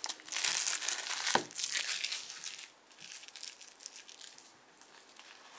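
Plastic wrapping from a card deck being crinkled and crumpled by hand, with a sharp click about a second and a half in, then dying down to faint rustling about two and a half seconds in.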